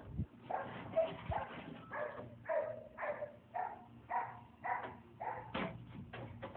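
Short animal calls repeated about twice a second, dog-like yaps.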